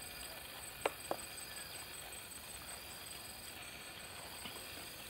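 Two short, sharp clicks a quarter second apart about a second in, over a faint steady hiss with a thin, high, pulsing tone.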